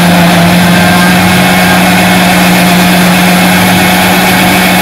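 Electric blender motor running steadily at full speed, blending herbs, green chillies and yogurt into a green paste in its plastic jar. A loud, constant motor sound.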